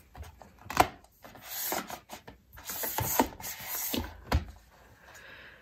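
Hands handling a clear plastic stamp case: rustling and rubbing with a few sharp clicks and taps, the loudest about a second in.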